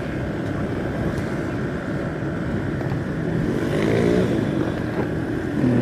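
Steady engine and road noise from a vehicle travelling along a paved highway, with low buffeting on the microphone. A little past three seconds in, an engine rises in pitch and eases off again about a second later.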